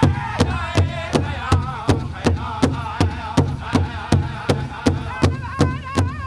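Powwow drum group singing a jingle dress song over a big drum struck in a steady beat, about three strokes a second. The voices waver in pitch, and a higher voice comes in about five seconds in.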